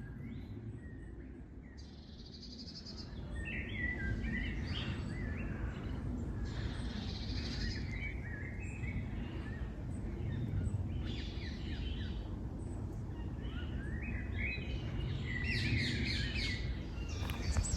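Songbirds singing in short, rapid phrases every few seconds, over a low steady rumble.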